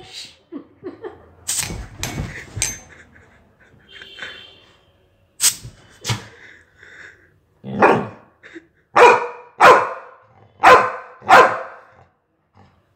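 Labrador dog barking, a few scattered sharp sounds first and then a quick run of about five loud barks in the second half, agitated by a whiff of perfume.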